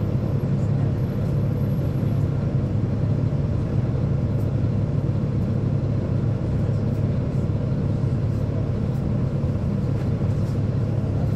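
Caterpillar C13 ACERT diesel engine of a NABI 40-SFW transit bus, heard from inside the bus, running steadily as a low drone that holds one pitch throughout.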